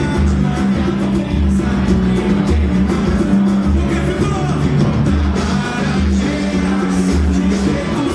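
Band playing with a singer over a steady bass beat.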